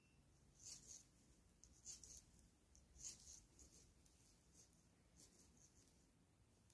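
Hand knitting on 3.5 mm knitting needles, heard faintly: soft scratchy ticks of the needles and yarn rubbing, about once a second, over quiet room tone.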